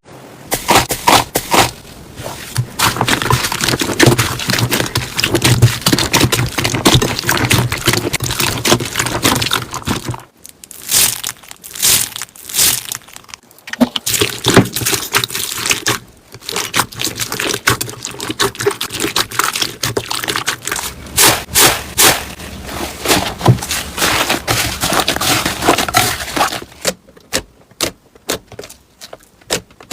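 Slime being squeezed and poked by hand, giving a dense run of sticky crackles and pops, with a few short pauses.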